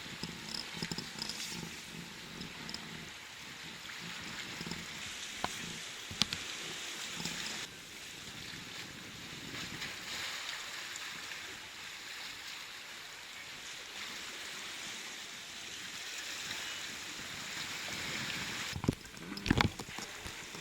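Steady rushing noise of wind and sea surf, with a few sharp knocks near the end.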